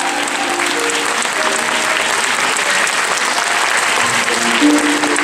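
Theatre audience applauding steadily through a curtain call, with the show's music playing softly underneath.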